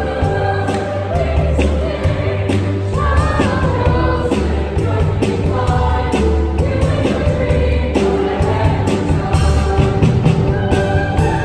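Musical-theatre cast singing together in chorus over an upbeat accompaniment with a steady beat and heavy bass.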